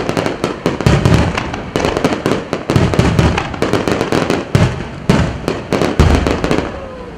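Star mine fireworks salvo: many aerial shells launching and bursting in quick succession, a dense run of sharp cracks with heavy booms about every second, thinning out near the end.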